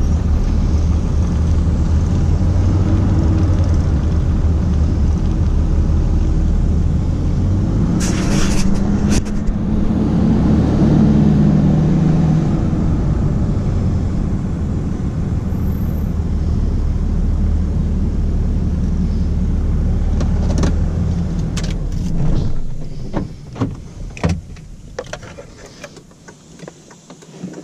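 A vehicle's engine running with road noise, its note rising and falling once near the middle. A little over two-thirds of the way through the engine sound drops away, followed by scattered clicks and knocks.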